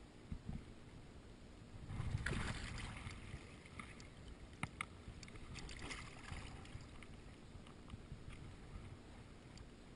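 Water lapping and sloshing against a float tube, with a louder surge of splashy noise about two seconds in and a few light clicks around the middle.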